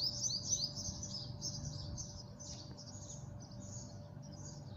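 Small birds chirping and twittering continuously in quick, overlapping chirps, over a low steady hum.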